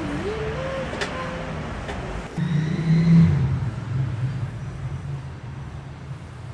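Road traffic: a motor vehicle's engine hum rising as it passes, loudest about three seconds in, over a steady low traffic rumble.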